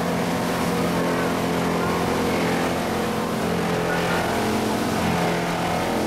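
Steady drone of running industrial machinery: an even hum of several steady tones over a noisy rush, holding the same level throughout.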